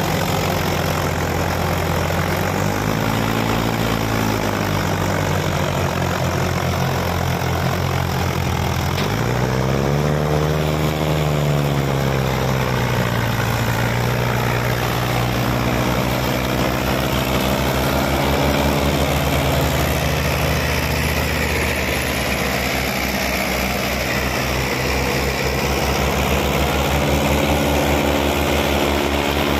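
Two Mahindra diesel tractors working hard under load: a 585 DI XP Plus hauling a fully loaded trolley, with an Arjun 555 pushing it from behind. The engines run steadily, and their pitch rises and falls as they rev up, most clearly about three seconds in and again around ten seconds.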